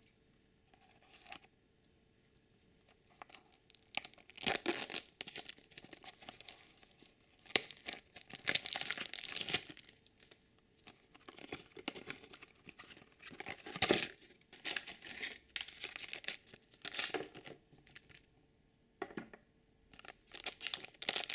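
Plastic packaging of a toy blind basket and its small blind bags being crinkled and torn open by hand, in irregular bursts with short pauses.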